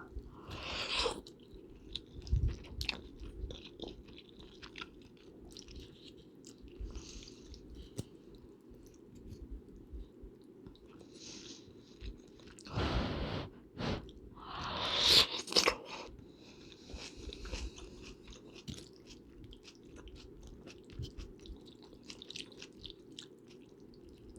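Close-miked eating: chewing and biting with small clicky mouth noises, and two louder, longer mouth sounds about halfway through, over a steady low background hum.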